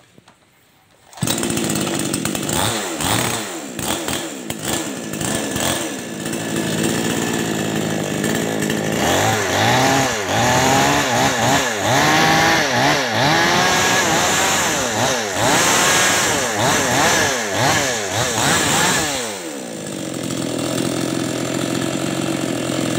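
Ramses CS5800 58 cc two-stroke chainsaw starting about a second in and idling, then blipped up and down repeatedly for about ten seconds before settling back to idle. The owner says the saw sputters ('brebet') and loses power, a fault he sets out to cure by turning the carburettor's adjusting screw.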